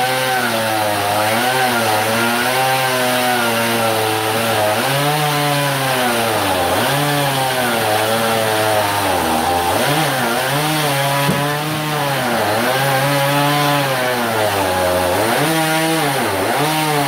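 A 40cc gas chainsaw and a Milwaukee M18 Fuel cordless chainsaw cutting through a log at the same time. The gas engine's pitch drops and rises again over and over as it bogs down in the cut and revs back up.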